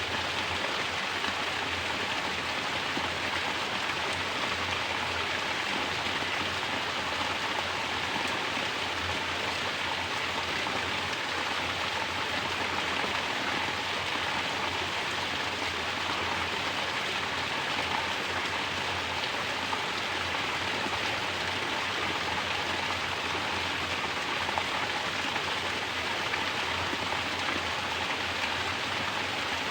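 Mountain water pouring steadily from a natural shower and splashing below, an even, unbroken rush.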